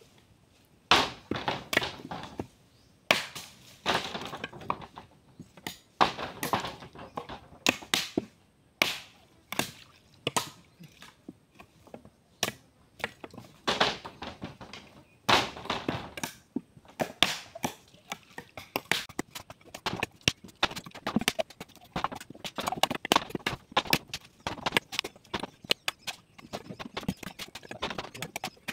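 Bolo knives chopping into husked coconuts to split them open for copra: a run of irregular sharp knocks, about one a second at first and coming faster and closer together in the second half.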